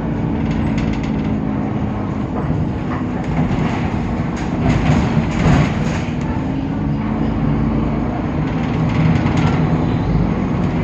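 Temsa Avenue LF city bus running, its DAF PR 228 diesel engine and ZF 6AP automatic gearbox giving a steady drone whose pitch shifts a little a few times, with scattered clicks and rattles.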